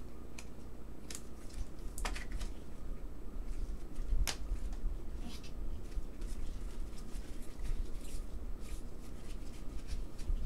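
Stack of trading cards being handled and flipped through by gloved hands: soft scattered rustles and clicks of card stock, with a sharper tap about two seconds in and another just after four seconds, over a low steady hum.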